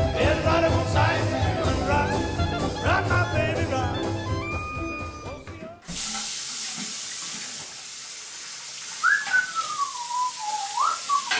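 Music with a steady beat cuts off about six seconds in, giving way to a bathroom sink tap running steadily as a razor and hands are rinsed under it. Near the end a person whistles a short tune that falls in pitch.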